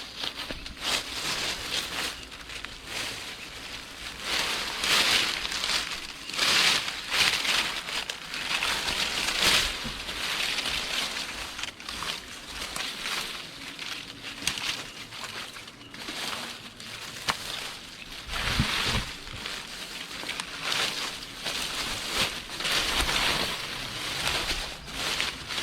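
Footsteps crunching over dry ground, an uneven run of steps on stones and dry leaves.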